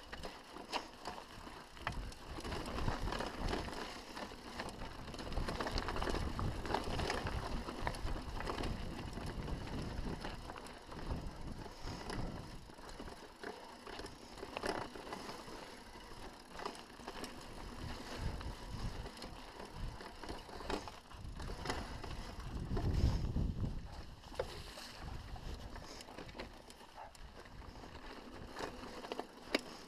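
Mountain bike descending rocky dirt singletrack: tyres rolling over dirt and loose stones, with frequent knocks and rattles from the bike. Wind buffets the microphone throughout, most heavily about 23 seconds in.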